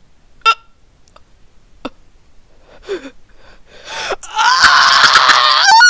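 A man's voice, acting as a cartoon character, lets out a loud, high, wavering wail of pain starting about four seconds in. It is the cry of someone who has just broken his wrist in a fall. Before it there is a brief sharp sound about half a second in, then a few faint small sounds.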